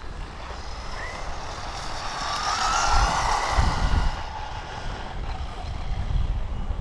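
JMRC S910 1/16-scale brushless RC truck running flat out on a speed pass: a high motor whine that rises and grows loudest about three seconds in, then fades as the truck pulls away. Wind buffets the microphone throughout.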